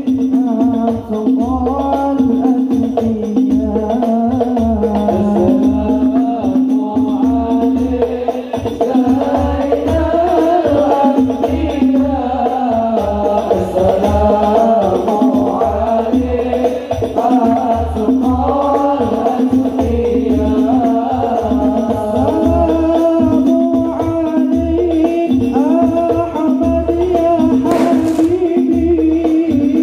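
Sholawat sung by a lead male voice with a group, accompanied by hadrah frame drums and jingles and a deep bass drum beating steadily. Near the end there is a short sharp crack.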